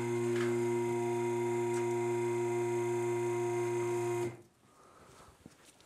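Electric hydraulic power unit of a 9,000-pound asymmetric two-post automotive lift running with a steady hum as it raises a pickup truck on its arms; it cuts off about four seconds in.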